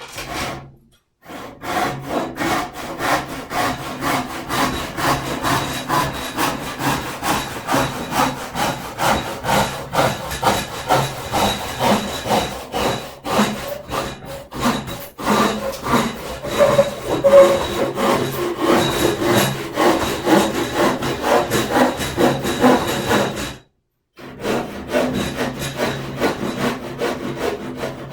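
Hand saw cutting through wood in quick, even back-and-forth strokes. The sawing stops briefly twice, about a second in and again near the end.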